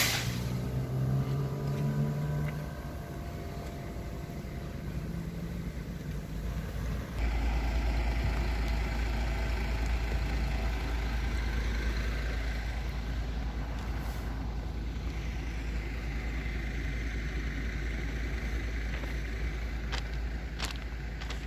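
City bus engine running, fading away over the first two or three seconds. Then a steady low rumble that grows louder about seven seconds in, with a few sharp clicks near the end.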